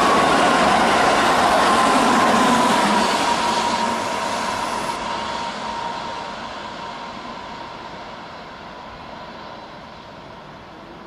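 Keihan electric commuter train running through at speed, a loud rush of wheels on rail with a steady whine that slides slightly lower, fading away over several seconds as it recedes.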